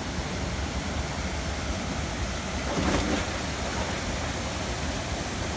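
Small waterfall and stream rushing steadily over rocks into a pool, with a brief louder swell of the rush about three seconds in.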